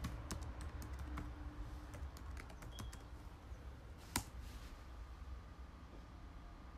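Typing on a computer keyboard: a run of quick key clicks as a web address is typed, then one louder click a little after four seconds in.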